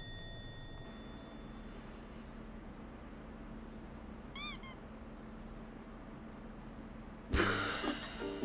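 A house cat gives one short, high meow that rises and falls, about halfway through, over a faint steady hum. Near the end a woman bursts out laughing.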